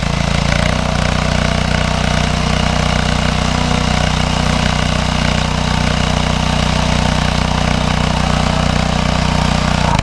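Mini bike's 196cc single-cylinder engine held at steady throttle, running at a constant pitch as the rear tyre spins in place on the dirt, throwing debris; the pitch settles slightly within the first second.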